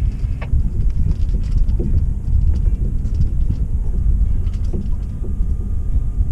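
Wind buffeting the microphone on a small sailboat under way: a loud, uneven low rumble, with a few faint ticks and knocks.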